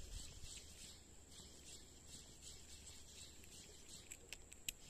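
Faint chirping of insects, a steady high buzz pulsing about three times a second, with a few sharp clicks near the end.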